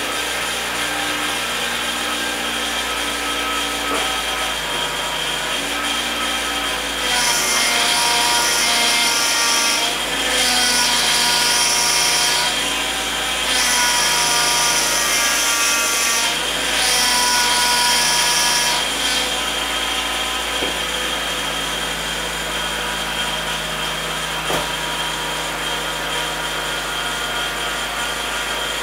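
Honda Civic Type R EK9's B16B four-cylinder engine idling with an abnormal noise from the engine bay. Four times, for two to three seconds each, a louder, harsh high-pitched noise with a shifting pitch rises over it; the noise is at its worst when the steering is turned.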